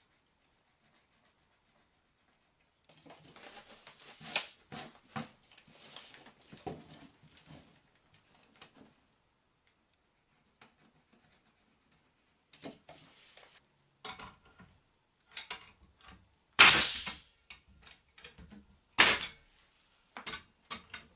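Soft scratching and rustling of marking out with a pencil and tape measure, then an air nail gun firing nails into the lumber of the bench frame: two loud sharp shots a couple of seconds apart near the end, followed by a few lighter clicks.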